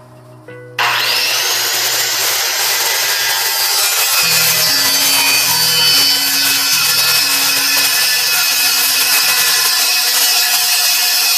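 Electric power saw starting up about a second in, its motor whine rising quickly, then running steadily as it cuts through a wooden wall board along a marked line.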